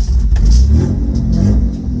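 Straight-piped Nissan RB30 straight-six in a Patrol, revving hard with no exhaust, its pitch rising and falling as the throttle is worked.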